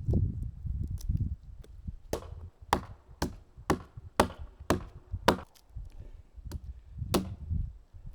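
Firewood being chopped into kindling: a run of sharp, ringing wooden blows about two a second, with a short pause before the last two.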